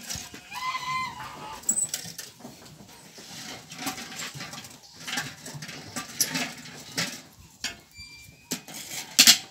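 Farm animals calling in the background, with scattered clicks and knocks and a loud sharp noise near the end.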